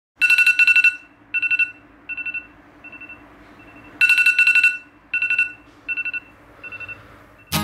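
Smartphone alarm ringing: a rapid trilling beep comes loud, then repeats fainter and fainter like an echo. The pattern starts over about four seconds in.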